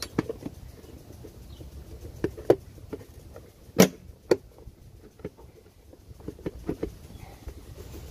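Irregular sharp knocks and clicks of parts being handled while an ATV air filter is fitted, the loudest about two and a half and four seconds in, with a quick run of smaller clicks near the end.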